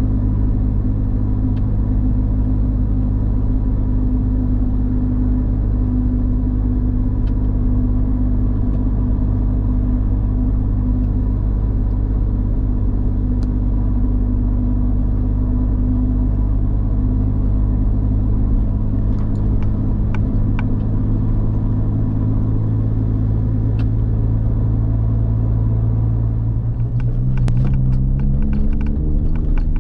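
Suzuki Jimny JB64's engine running steadily with a low, even hum. Near the end its pitch rises, and a few sharp clicks or knocks are heard.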